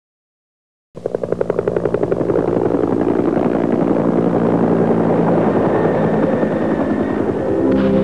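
After a second of silence, music starts: a fast chopping pulse of several beats a second over a low drone, the pulses blurring into a steady wash as it goes on.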